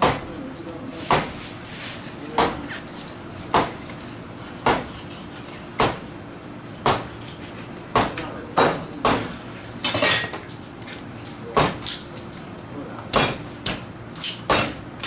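A large fish knife chopping crosswise through a Spanish mackerel into steaks, each stroke ending in a sharp knock on the wooden cutting board. The knocks come about once a second at first, then faster and closer together in the second half.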